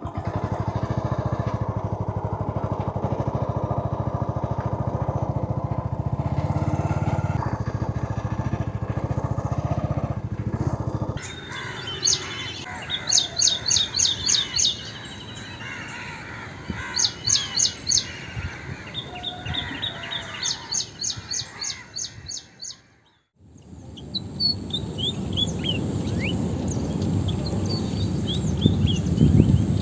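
A motorcycle engine idles steadily for about the first eleven seconds. Then high, rapid bird calls come in short repeated bursts. After a brief break, more descending chirps sound over a low rumble.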